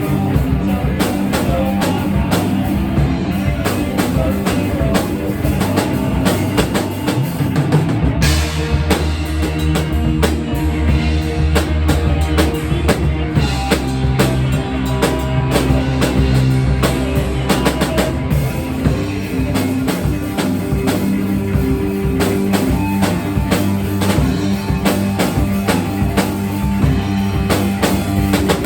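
Rock music played on a full drum kit with bass and guitar, keeping a steady beat. A heavier low bass part comes in about eight seconds in and eases off about ten seconds later.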